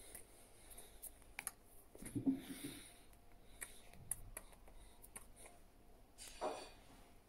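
Faint rustles and scattered small clicks from a person signing: hands and sleeves brushing against a sweater, with a soft rustle a couple of seconds in and another about six seconds in.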